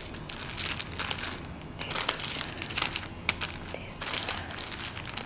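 Clear plastic bags crinkling and crackling in irregular rustles as plastic-wrapped fabric pencil cases are handled and shuffled.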